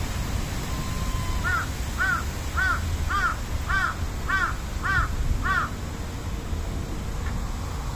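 A crow cawing eight times in an even series, a little under two caws a second, each caw rising and falling in pitch, over a steady low rumble.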